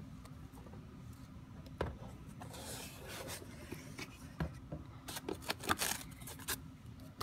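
Hands unpacking a cardboard box lined with white foam: rustling and rubbing of the foam and cardboard, with a sharp click about two seconds in and a run of light knocks and scrapes near the end.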